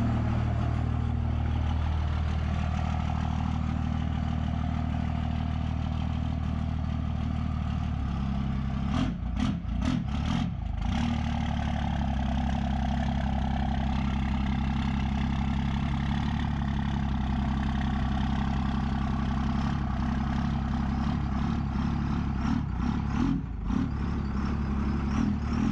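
Second-generation Dodge Ram 2500's turbo-diesel engine idling steadily, with a few short knocks about nine to ten seconds in and again near the end.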